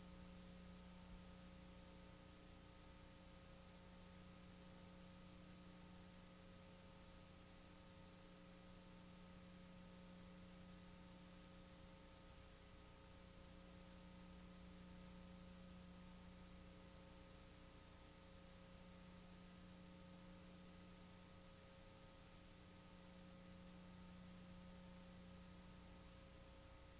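Near silence: a faint, steady electrical hum with a little hiss.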